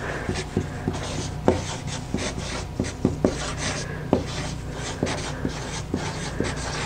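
Felt-tip marker scratching and squeaking across chart paper as words are written, in many short irregular strokes with brief pauses between them.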